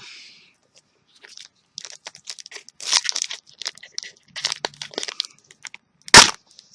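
Foil wrapper of a trading-card booster pack being worked open by hand, crinkling and crackling in irregular bursts, then one loud sharp rip about six seconds in as it tears. The wrapper is tough and takes real force to open.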